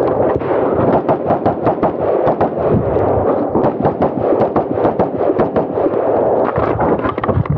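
Daniel Defense MK18 short-barrelled 5.56 rifle firing a rapid string of shots, about three or four a second.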